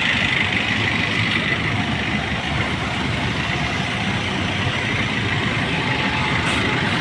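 Vehicle engine running steadily while its exhaust smoke is tested for a pass or fail in an emissions check.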